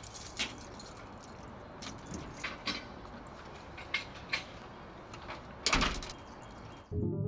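A bunch of keys jingling in scattered light clinks, then a door shutting with one loud thud a little before six seconds in.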